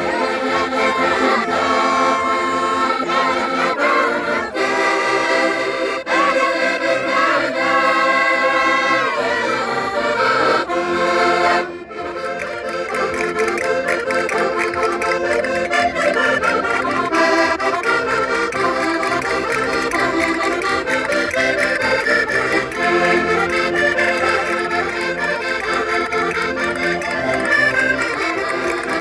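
Concertinas playing a lively traditional folk tune, with a brief break about twelve seconds in before the playing resumes, busier.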